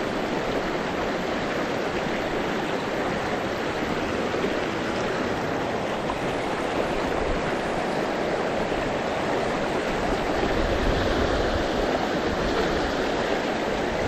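Creek water rushing steadily over shallow rock ledges in a riffle.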